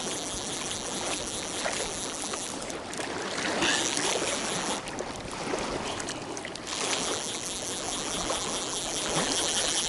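Lake water splashing and lapping as a hooked trout is played and reeled in.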